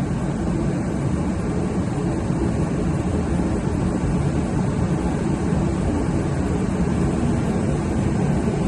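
Master portable forced-air heater running with a steady, even rushing noise.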